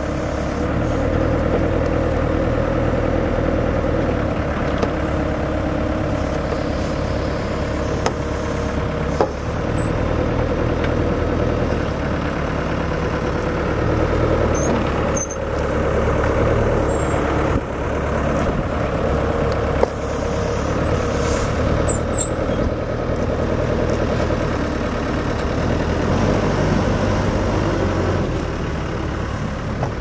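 Komatsu WB140 backhoe loader's Yanmar four-cylinder turbo diesel running under load, with a steady whine that swells and fades over several seconds as the backhoe arm and bucket are worked.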